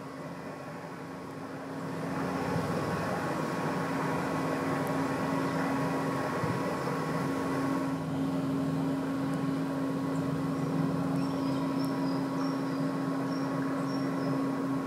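Steady motor hum with a low drone and a higher held tone, getting louder about two seconds in. Faint bird chirps come in near the end.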